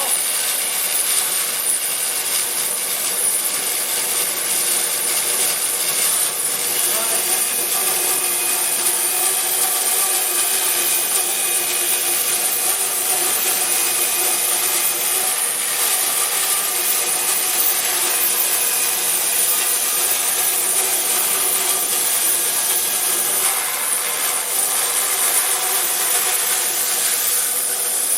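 A 36-inch resaw band saw running steadily through wood, the blade cutting continuously, with a steady high whine.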